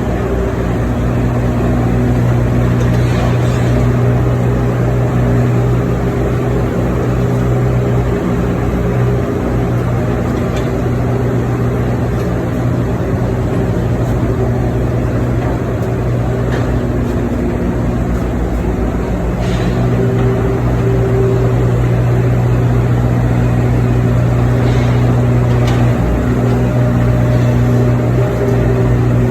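Hydraulic excavator's diesel engine running steadily under load while digging soil, its note breaking and shifting twice, with a few faint clanks.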